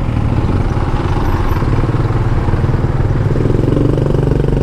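An old motorcycle's engine running steadily while creeping through stopped traffic.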